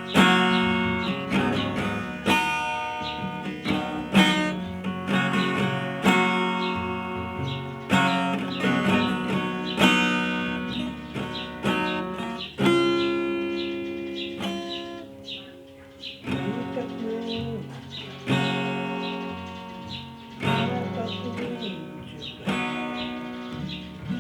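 Acoustic guitar playing an instrumental passage without singing: a chord struck about every two seconds and left to ring and fade, with single plucked notes in between.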